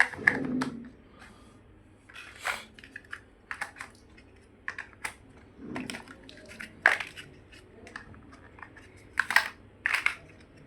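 Plastic building bricks being handled and pressed together: irregular sharp clicks and snaps, with a few short rustles of pieces being moved between them.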